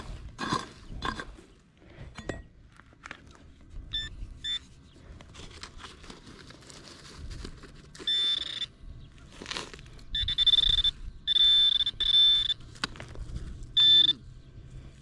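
Minelab X-Terra metal detector beeping on a non-ferrous target being dug out: a series of high steady tones, short and long, the last ones several in a row, between scrapes and knocks of digging in the soil.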